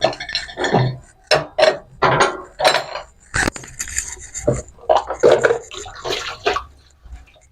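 Pots, pans and metal utensils clattering and clinking as they are handled and moved around, in a string of separate knocks and scrapes, some with a brief metallic ring.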